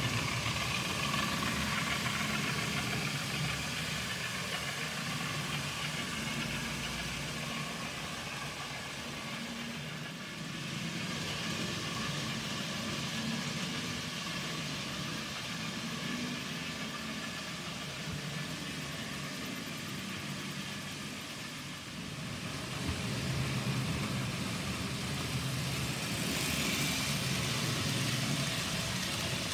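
N gauge model trains running on the layout: the locomotives' small electric motors whine steadily over a low rumble of wheels on the track. It is louder in the first couple of seconds and again in the last several seconds, as trains pass close by.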